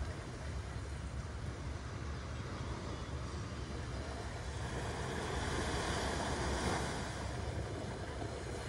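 Small waves washing up on a sandy beach, one surging louder about five to seven seconds in, over a steady low rumble of wind on the microphone.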